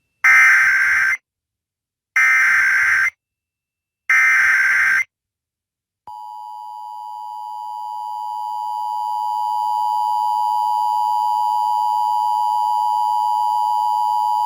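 Emergency Alert System broadcast: three one-second bursts of SAME header data tones, a second apart, then the two-tone EAS attention signal. The attention signal swells in level over its first few seconds and then holds steady, announcing a Required Monthly Test.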